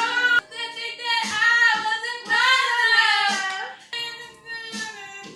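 Female voices singing karaoke over a backing track, the sung notes bending and held in phrases.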